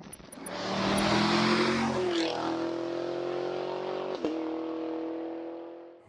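Chevrolet Corvette Z06's flat-plane-crank 5.5-litre LT6 V8 starting up: the engine catches with a rising rev flare, settles about two seconds in, and then holds a steady fast idle before fading out near the end.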